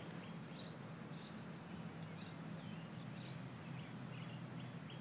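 Small birds chirping: a few short, high, downward-slurred chirps, then from about four seconds in a quick run of repeated chirps, over a faint steady low hum.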